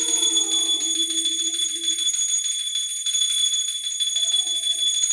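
Brass puja hand bell rung rapidly and continuously, a bright shrill ringing with a fast, even flutter. A held lower note sounds for about the first two seconds, with short weaker notes later.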